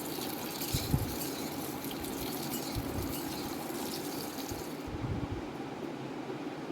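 Potato and carrot pieces sizzling as they fry in hot mustard oil in a karai, with a few light knocks of the spatula. The high hiss drops off sharply about five seconds in.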